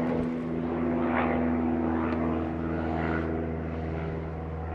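A propeller aircraft's engine running steadily: an even drone made of several level tones, one of which fades a little past halfway.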